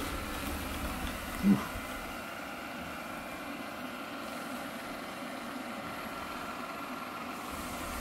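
Eufy Clean L50 robot vacuum running across a tile floor through spilled ground coffee: a steady suction-fan hum with a faint whine. A brief low thump about one and a half seconds in.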